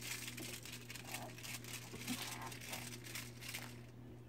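Irregular rustling and crinkling of Vizsla puppies moving about on fleece blankets while a toy is dangled and shaken over them, with a steady low hum underneath.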